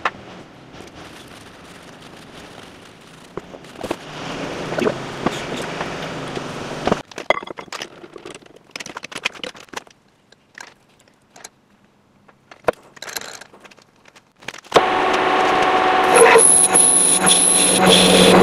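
Handling of CV-joint parts and scattered clicks. Then, about fifteen seconds in, a metal lathe starts up and runs loud and steady with a whine, turning and cutting the steel Tesla Model S half-shaft.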